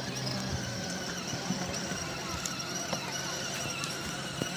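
Outdoor background noise of distant voices over a low steady hum, with a few faint clicks.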